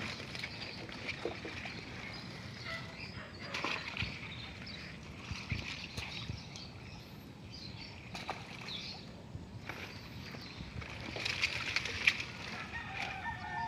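Water hyacinth being handled and pulled from shallow water: leaves and stems rustling and water sloshing, with scattered sharp clicks.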